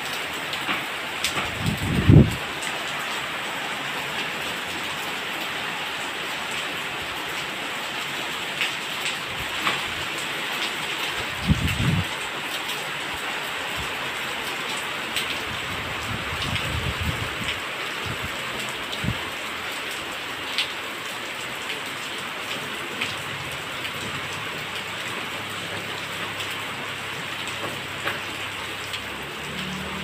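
Rain falling steadily, a constant hiss on the ground and plants. A few brief low thumps break through it, the strongest about two seconds in and another near twelve seconds.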